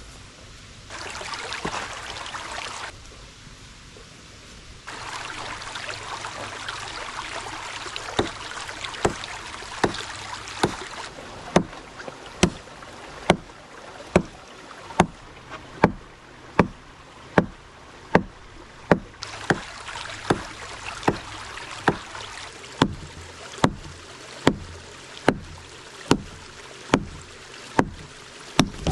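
Evenly spaced sharp knocks, a little more than one a second, starting faint about eight seconds in and soon growing louder, over a steady rushing noise that cuts in and out a few times.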